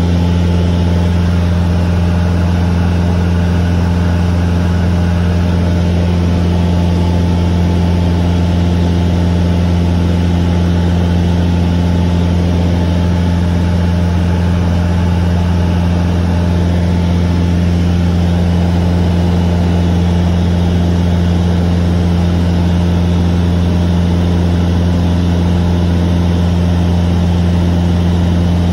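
Cessna 150's four-cylinder Continental O-200 engine and propeller in flight, a steady, loud, low drone heard inside the cabin.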